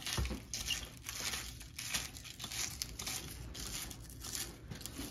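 Irregular crinkling and rustling handling noises from food preparation, a run of short scrapes about two or three a second.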